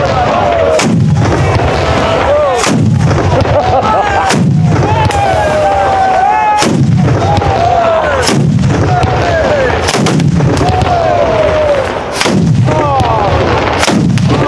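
A Bolognese-style batteria of ground firecrackers going off in a continuous, loud crackling chain. Heavy bangs break through about every one and a half to two seconds.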